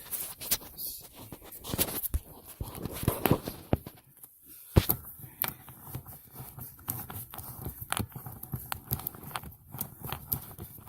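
Irregular clicks, taps and scrapes of hand work on a well pressure switch's wiring, as wire leads and terminals are handled and fastened.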